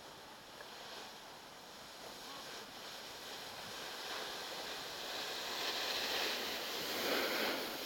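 Snowboards sliding and scraping over snow: a rushing hiss that grows louder as a rider comes close, loudest near the end.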